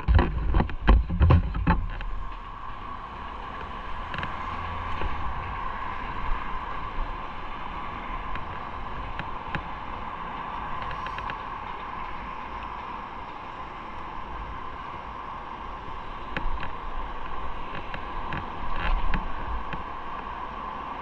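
Motorcycle on the move: steady engine and road-and-wind noise, with loud low thumps and knocks in the first two seconds.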